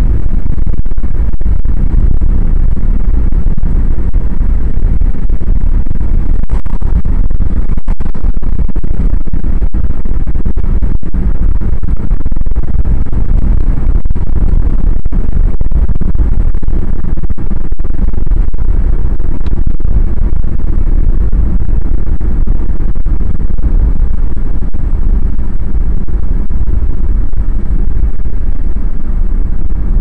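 Steady loud low rumble of road and wind noise from a moving car.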